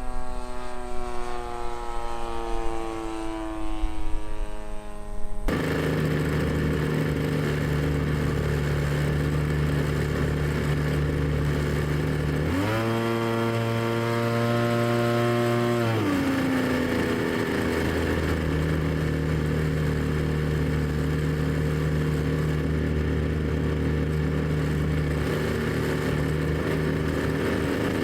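Small 20cc gas engine of an RC Piper Cub airplane running. First its pitch falls steadily; then, after a sudden change, it runs at a steady speed. About halfway through, the throttle opens to a higher pitch for a few seconds, then it settles back down.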